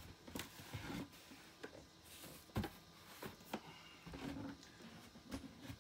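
Faint, scattered clicks and short rustles of a cardboard shipping box and its packing being handled as it is opened, with a louder knock at the very end.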